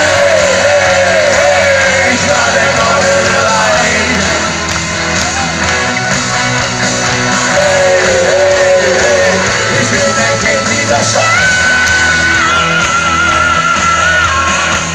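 Live band playing loud rock music, with a man singing and shouting into a microphone over a strummed acoustic guitar; the song starts abruptly.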